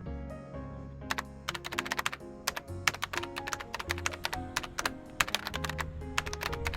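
Background music with held notes, and over it a quick, irregular run of sharp clicks like keyboard typing that starts about a second in and stops shortly before the end.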